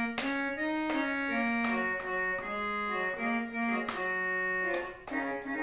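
Small electronic keyboard playing an instrumental melody in an organ-like voice, one line of steady held notes stepping up and down.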